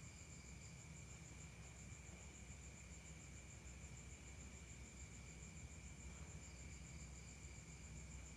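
Faint, continuous night insect chorus, likely crickets: a high, rapidly pulsing trill with a lower steady tone beneath it, over a low background hum.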